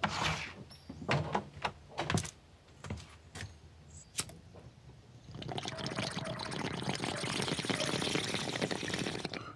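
A few sharp clicks and knocks, then water bubbling steadily in a glass bong for about four seconds as smoke is drawn through it.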